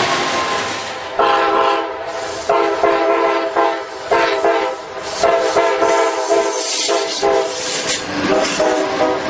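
Multi-chime locomotive air horn sounding a series of blasts, each a chord of several notes held together, over the running noise of a moving train.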